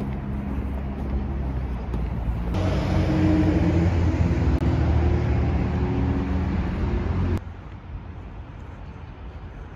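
City road traffic noise, with a louder stretch in the middle where a nearby vehicle's engine hums steadily; it cuts off suddenly about seven seconds in and a quieter traffic background continues.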